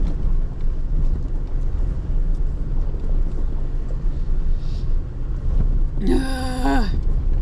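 Toyota Tacoma on BFGoodrich KO3 tires crawling along a rocky dirt trail: a steady low rumble of engine and tyres. A short drawn-out vocal sound from a person about six seconds in.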